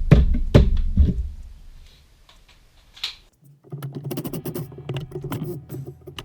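A quick run of sharp knocks and clicks over a low rumble for about a second and a half, then near quiet. Background music begins about two-thirds of the way in.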